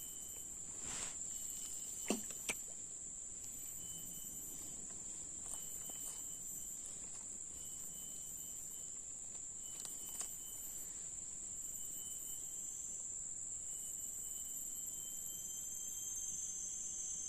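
Steady, high-pitched insect chorus of forest insects, with short high notes recurring every second or two. A few light clicks and a knock sound in the first three seconds.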